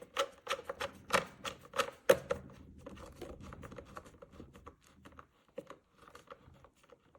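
Typing on an IBM Model M keyboard: its buckling-spring keys give sharp clicks several times a second, loud for the first two seconds or so, then lighter and more scattered.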